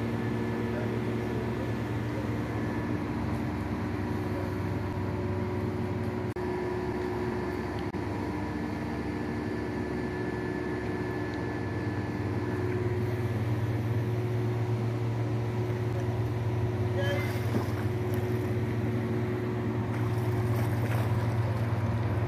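Steady low engine drone of a nearby boat, with a strong hum and several steady tones above it. It grows a little louder about halfway through, and a brief scratchy noise comes near the end.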